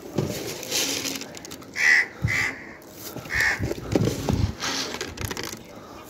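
Crows cawing: three short, harsh caws about two to three and a half seconds in, over low knocks and rustling close by.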